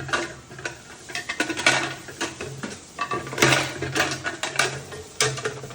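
Toy cars clattering and scraping inside a plastic whey separator, in irregular bursts as they are 'ground' in it.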